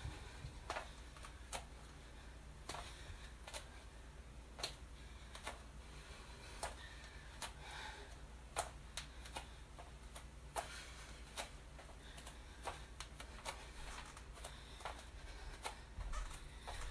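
Bare feet stepping onto a yoga mat during lunges, making soft, short knocks about once a second.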